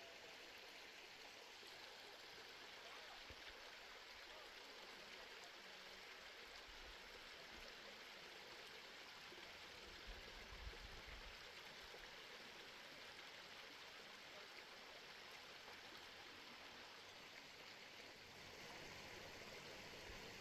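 Near silence: a faint, steady hiss, with a few brief low rumbles about halfway through.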